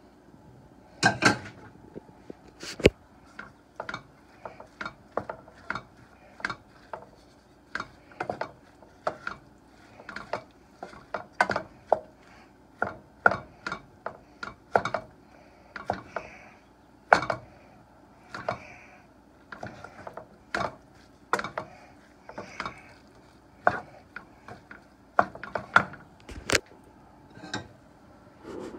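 Wooden spoon stirring a panful of chopped food in a frying pan, knocking and scraping against the pan in irregular clacks about once or twice a second.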